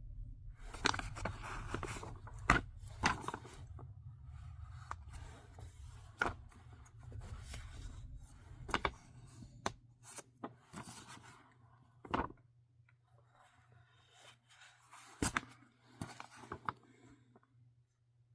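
Comic books being handled and shuffled: intermittent rustling and scraping with a few sharp taps and clicks, over a low steady hum.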